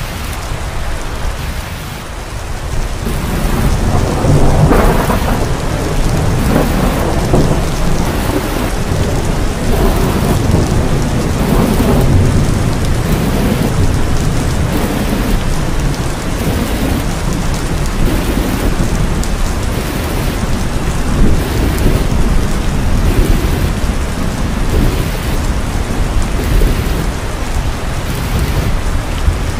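Loud, gusting rush of noise with a deep rumble: wind buffeting the microphone.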